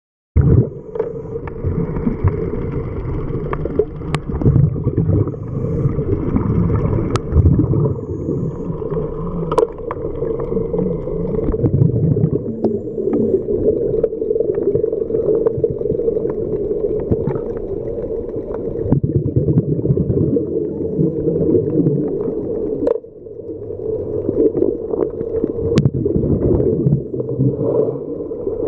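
Underwater sound picked up by a camera filming an anchor setting in sand: a steady drone with a low, uneven water rumble, cut by a few sharp clicks. It starts suddenly just after the beginning and dips briefly near the end.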